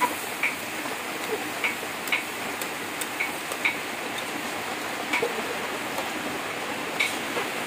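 Metal spatula scraping and clinking against an aluminium wok as diced duck meat is stir-fried, about a dozen irregular clicks over a steady sizzle.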